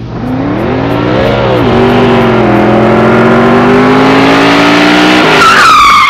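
A car engine revs up sharply, drops back, then holds at high revs and slowly climbs. Just over five seconds in, tires screech loudly with a wavering pitch.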